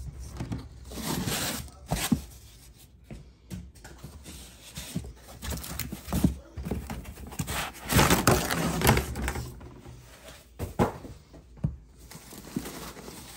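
Packaging being handled in a foam-lined wooden crate: rustling and crinkling of plastic wrap and a loose plastic packing strap, with scattered knocks and thunks. The longest, loudest rustle comes about eight seconds in.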